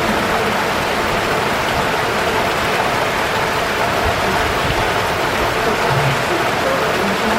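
Steady heavy rain falling and splashing on hard surfaces, a dense even hiss.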